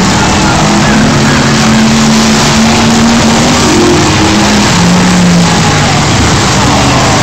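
Several race car engines running hard around the track at once, loud and steady, with pitches that rise and fall as the cars pass.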